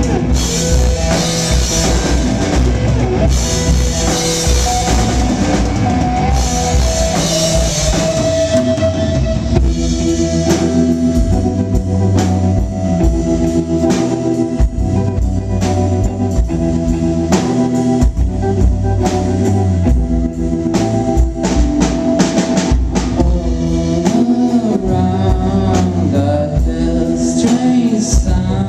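Rock band playing live in a poor-quality recording. A drum kit with heavy cymbal crashes leads for the first nine seconds or so, then held notes continue over steady drum hits.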